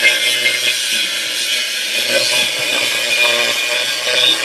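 Angle grinder cutting into a metal tractor-implement part, a steady high grinding whine.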